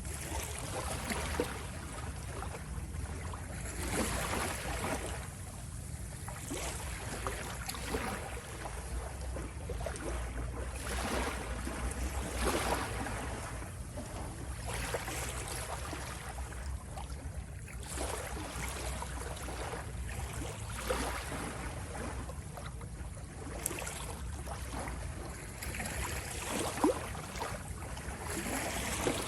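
Waves lapping and splashing, a wash every second or two, over a constant low rumble.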